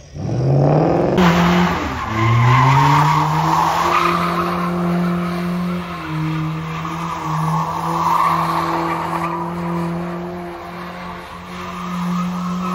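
A car spinning its tyres: the engine revs up, drops briefly about two seconds in, then climbs again and is held at high revs while the tyres screech steadily under wheelspin.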